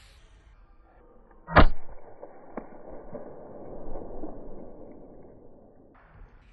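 A single sharp shot from an airgun about one and a half seconds in, followed by a lower, steady rustling noise.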